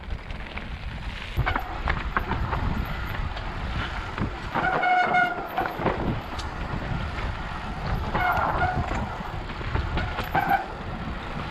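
Mountain bike disc brakes honking in short horn-like bursts, three times, the longest about a second, over the steady rumble and rattle of tyres and bike on a dry, dusty dirt trail.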